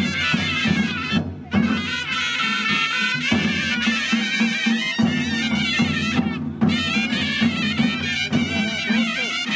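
Kullu folk band playing Nati dance music: shehnai-type double-reed pipes carry a wavering, reedy melody over the steady beat of dhol drums. The pipes break off briefly about a second in and again just past six seconds while the drums keep going.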